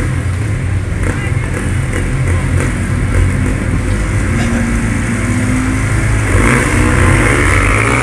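Ice speedway motorcycles' 500 cc single-cylinder methanol engines revving at the start line, then accelerating hard away from the start about six seconds in, the engine pitch rising.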